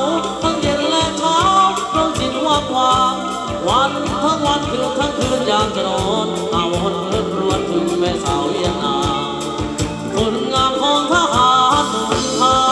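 Live Thai ramwong band music: a steady drum beat under a wavering, sliding melody line.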